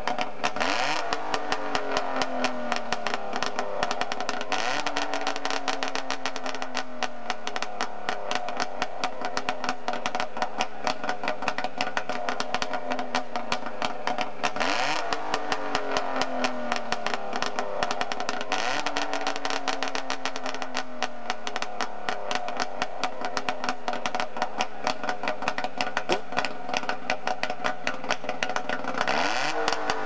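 A DKW-Vemag Vemaguet's three-cylinder two-stroke engine running with a fast, crackling beat. It is revved about five times; each time the pitch rises quickly and then falls off slowly.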